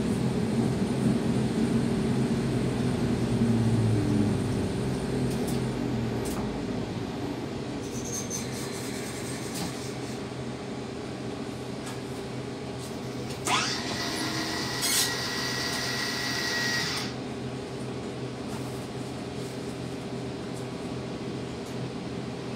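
Electric train heard from the driver's cab, slowing to a stop at a platform: its running noise dies away over the first six seconds. A steady electrical hum follows while it stands. About halfway through, a hiss starts suddenly and lasts about three and a half seconds.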